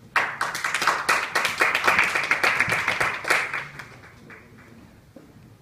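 Audience applauding, starting suddenly and dying away after about three and a half seconds.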